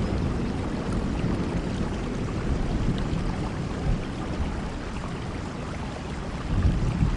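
Steady heavy rain, a dense even hiss, with brief low rumbles rising out of it at the start, about four seconds in and again near the end.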